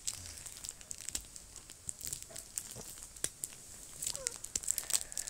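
Plastic wrap on a small cardboard box crinkling and crackling as fingers pick and pull at it, trying to tear it open, in scattered sharp crackles. A brief faint murmur of a voice comes about four seconds in.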